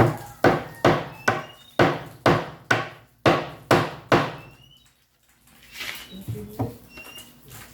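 Blows on a wooden shipping crate as it is knocked open: about ten sharp wooden knocks in quick succession, a little under half a second apart, then a pause and a few lighter knocks near the end.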